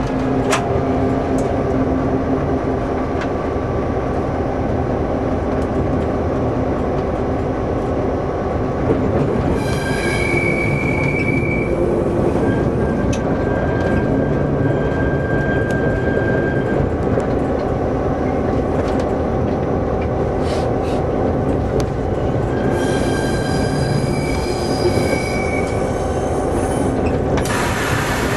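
DSB class MY diesel-electric locomotive's GM two-stroke V16 engine running steadily as the train rolls along, heard from the cab. Wheel flanges squeal on the curves, in high drawn-out tones that come and go about ten seconds in, through the middle, and again near the end.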